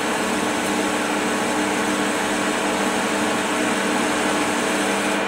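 Metal-turning lathe running at a steady speed: motor and headstock hum with a few steady tones, while the tool takes a turning cut along a metal part.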